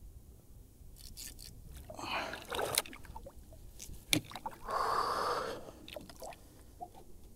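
Heavy breathing of an angler straining to bring in a hooked fish: two long hissing exhales, about two seconds and about five seconds in, with a few small knocks and clicks of gear on the kayak.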